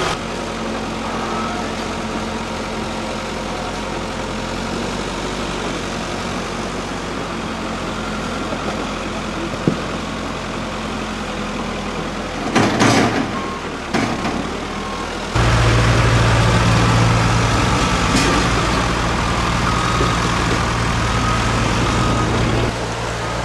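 Diesel engine of a backhoe loader running steadily as it works. A short rattle of rock and dirt pouring from the front bucket comes about 13 seconds in, and a couple of seconds later the engine gets louder and deeper for several seconds.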